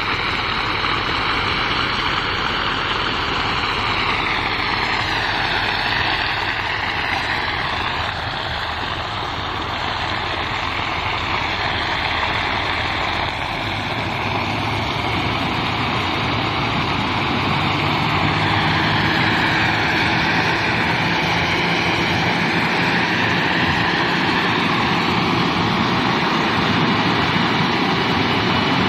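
Tracked fire-fighting smoke-exhaust robot running steadily, its engine and blower making a loud continuous mechanical noise, with a hiss that slowly sweeps down and back up in pitch.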